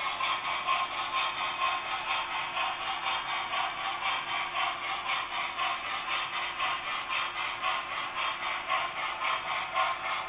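HO-scale model freight trains rolling along the track: a continuous clatter and rattle of the cars' wheels, with a quick, even pulsing.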